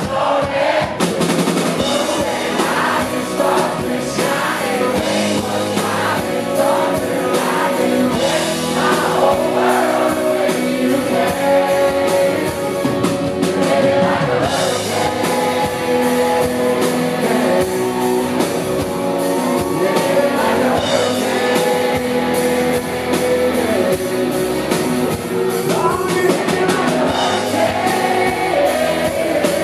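Live country band: a male lead vocal singing over strummed acoustic guitar, bass guitar and drums.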